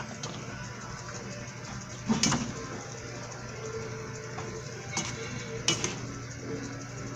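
A metal utensil stirring and tossing noodles and vegetables in a stainless steel pan, with three sharper clanks against the pan, over a faint steady sizzle and hum.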